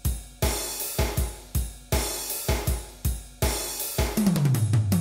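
Instrumental music opening on a drum kit: kick drum and cymbals hit in a steady, syncopated beat. About four seconds in, a quick fill of hits comes in, with tones falling in pitch.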